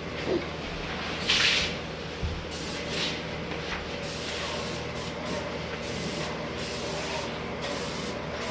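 Airless paint sprayer gun hissing as it sprays pre-catalysed lacquer, in stretches that start and stop as the trigger is pulled and released, loudest in a short burst about a second and a half in. A steady low hum runs underneath.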